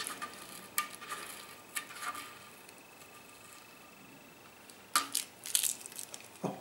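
A sticker being picked and peeled off a motorcycle's paintwork: scattered short scratchy rips and clicks, a few in the first two seconds and a denser run near the end, with a quiet pause in between.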